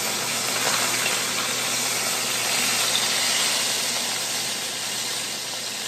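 Beef pot roast searing in hot oil in a skillet: a steady sizzle as the crust browns.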